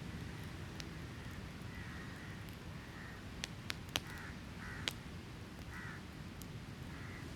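Beach campfire crackling, with a few sharp pops clustered around the middle, over a steady low rumble of surf. Short bird calls repeat several times in the background.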